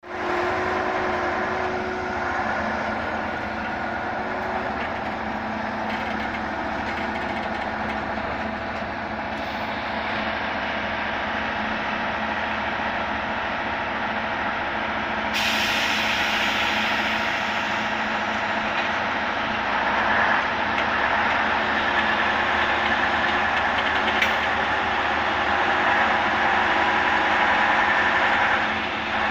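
Heavy diesel-powered track-repair machinery running steadily while welded rail strings are dismantled. About halfway through, a brighter, hiss-like rushing noise sets in suddenly, and the sound grows a little louder near the end.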